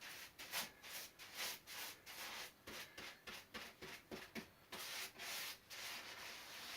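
Quick rubbing strokes, about three a second, of a tool spreading polyester resin into fibreglass cloth on a surfboard while wetting it out.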